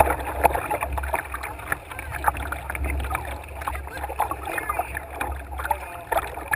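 Rapids rushing and splashing against a canoe's hull, with many irregular short splashes over a steady low rumble.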